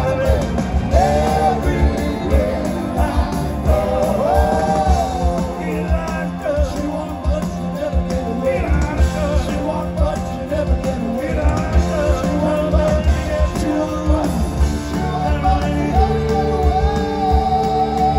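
Rock band playing live: a lead singer with a second voice joining in, over electric bass and a steady drum beat.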